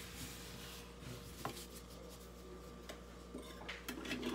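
Quiet rubbing and handling noise from gloved hands working at a wooden cutting board, with a light tap about a second and a half in and a few small clicks near the end, over a steady low hum.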